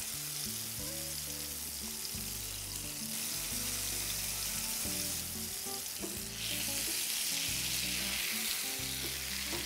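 Ground onion paste with green chilli, ginger and garlic sizzling as it is poured into hot oil in a frying pan and stirred with a wooden spatula. The sizzling gets louder about six seconds in.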